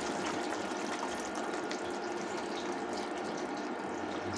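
Homemade coconut milk being poured from a bowl into a pan of hot prawn curry: a steady pouring and filling of liquid.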